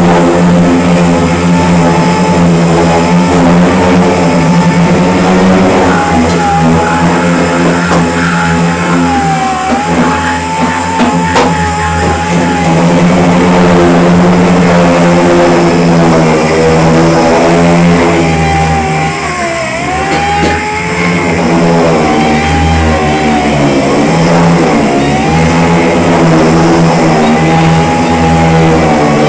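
Rock music playing loudly, with guitar and drums.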